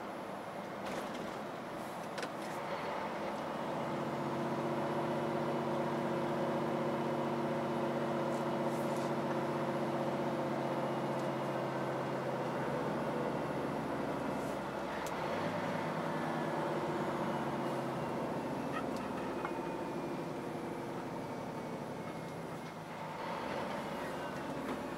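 Scania truck's diesel engine running steadily on the road, heard from inside the cab. It grows louder a few seconds in and its note shifts around the middle. A few short sharp clicks sound over it.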